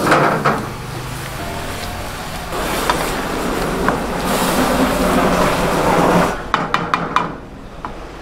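Minced meat cooking in a frying pan over a gas burner, sizzling as a wooden spatula stirs and scrapes it. About six and a half seconds in there is a quick run of sharp taps, and after that the sound is quieter.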